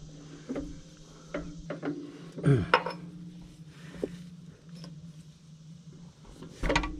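Irregular light metallic taps and clinks of a hammer driving pins out of a Massey Ferguson 135 drive coupling (shear tube), with a steady low hum underneath.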